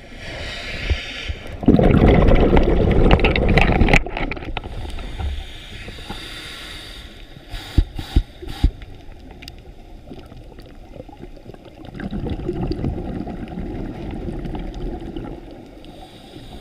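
Muffled water noise picked up by a camera held underwater: rushing and gurgling. There is a loud rushing stretch from about two to four seconds in, a few sharp clicks around eight seconds, and a lower rumble again near the end.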